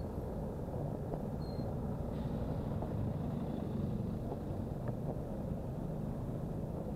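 Steady low rumble of city traffic and road noise, heard from a moving bicycle.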